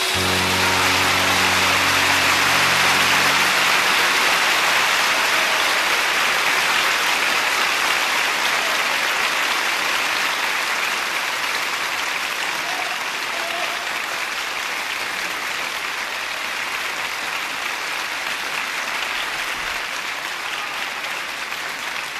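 Audience applauding as a song ends, with the band's last chord ringing under the first few seconds of clapping. The clapping rises at once and then slowly eases.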